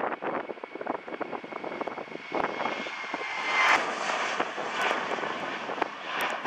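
Boeing 737-700's CFM56-7 turbofan engines at takeoff thrust as the airliner lifts off and climbs out: loud, rough jet noise with a steady high whine that fades out a little over halfway through, the noise loudest around that point.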